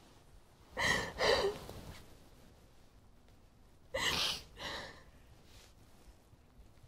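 A woman crying: two pairs of sobbing, gasping breaths, the first about a second in and the second about four seconds in.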